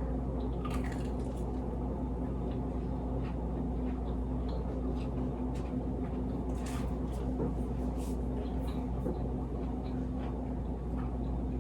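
Steady low electrical hum, with faint scattered crunches of someone chewing a crispy breaded chicken nugget.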